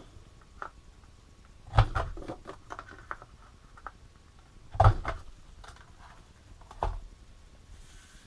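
Corner-rounder punch on the back of a Stampin' Up! Envelope Punch Board pressed down three times, rounding the corners of a card pouch. Each press is a sharp clunk, with lighter clicks and rustling of the card as it is turned and set into the punch between presses.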